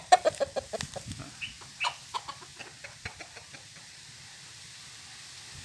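Fighting rooster clucking in a quick run of short notes. It is loudest at the start and thins out after about three seconds.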